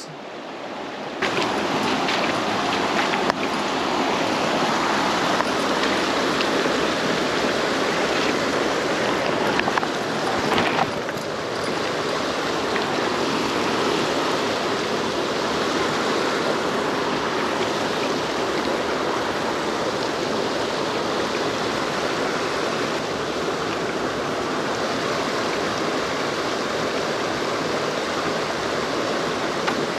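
Steady rush of creek water, from water spilling over a low concrete step into the pool. It gets louder about a second in and then holds even.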